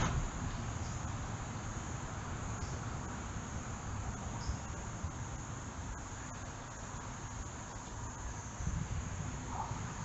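A steady, high-pitched insect chorus of crickets droning on without a break, over an even background hiss.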